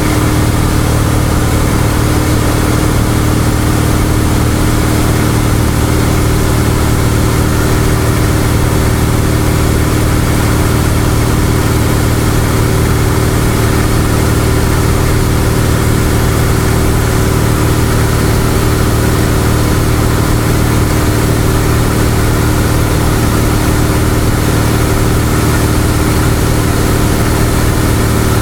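Cessna 172's piston engine and propeller droning steadily at cruise power, heard inside the cockpit, with an even hiss of rushing air over it.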